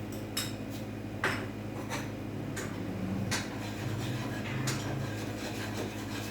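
A spoon clinking and scraping against a cooking pot several times while the sauce is stirred, over a steady low hum.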